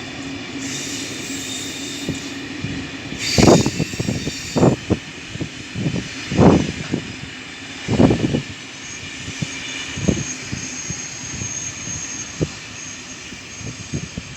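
Train running on the line: a steady rolling hum with a few high tones, broken by several loud, irregular thumps in the middle.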